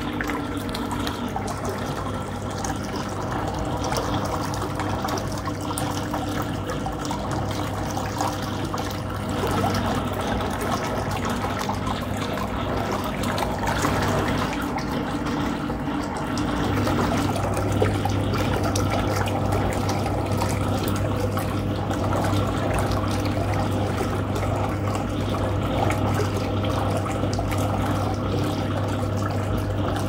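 Hoover 0307 washing machine running, its pulsator churning and sloshing soapy water in the tub over a steady low electric motor hum. The hum grows a little louder about halfway through.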